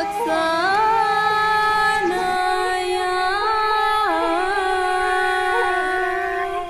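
Background music: a high voice singing long, held notes with slow slides between pitches, over a low steady tone that drops out about two seconds in.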